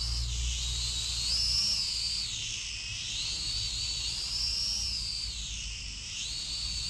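A small quadcopter drone's motors and propellers whine in the air, the high pitch rising and falling again and again as the drone speeds up and slows to climb and drop.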